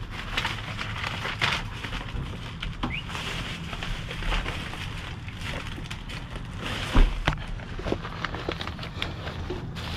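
Plastic bags and bubble wrap crinkling and rustling as hands dig through loose packaging, with a heavier thump about seven seconds in.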